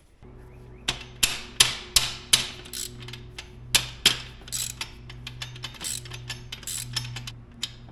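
Irregular sharp metallic clicks and knocks, several a second, as motorcycle brake rotor, spacer and hub bracket parts are handled and worked into a very tight fit.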